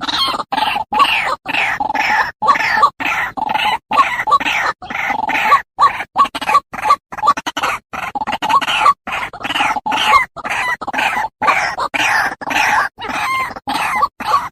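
White-breasted waterhen (ruak-ruak) calling over and over in a rapid, unbroken run of short notes, several a second.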